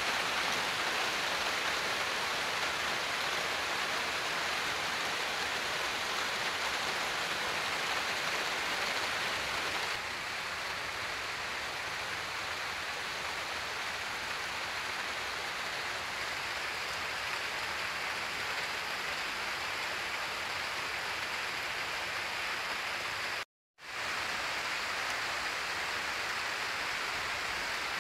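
Steady, even outdoor hiss of noise, with no distinct events. It cuts out for a split second about three quarters of the way through.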